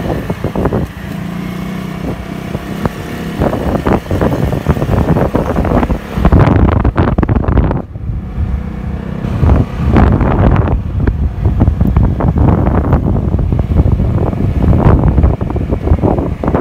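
Wind buffeting the microphone of a phone carried on a moving motorcycle, a loud gusty rumble over the motorcycle's engine running at cruising speed.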